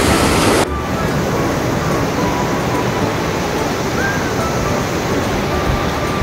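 Fast, swollen mountain river rushing over boulders: a loud, steady roar of whitewater. Less than a second in, the sound suddenly becomes a little duller and quieter, then runs on steadily.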